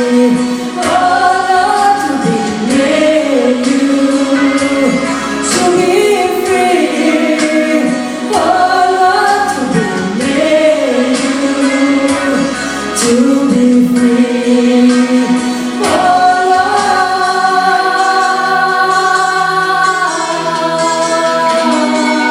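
Background music: a song with a female singing voice over sustained accompaniment.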